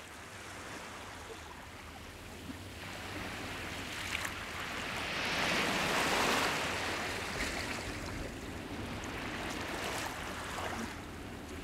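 Sea surf: the wash of a wave that swells to a peak about halfway through and then slowly recedes.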